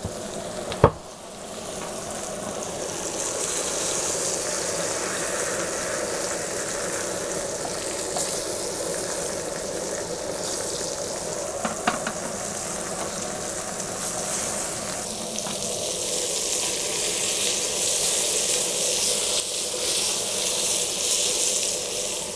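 Small cubes of fish sizzling steadily in a frying pan of hot beef tallow. Two sharp clicks stand out, about a second in and near the middle.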